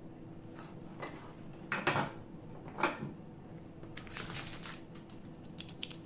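Handling clatter of a mechanical keyboard and tools on a wooden table: a few separate knocks, then a quick run of small clicks about four seconds in and again near the end. A faint steady hum sits underneath.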